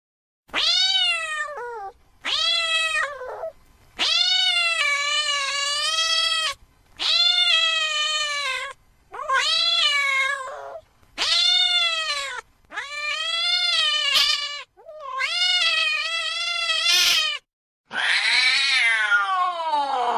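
Domestic cat meowing over and over in long, drawn-out meows, about nine in all with short gaps between them. The last meow glides down in pitch.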